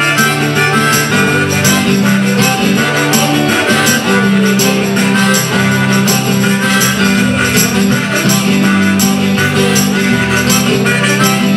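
Live acoustic band playing an instrumental passage: several strummed acoustic guitars over held low notes, with a steady, even percussive beat.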